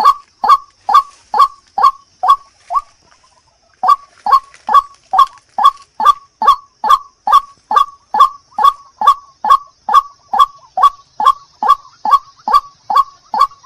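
White-breasted waterhen calls, a loud harsh 'ruak' note repeated about two and a half times a second. The calls break off for about a second near three seconds in, then resume at the same pace.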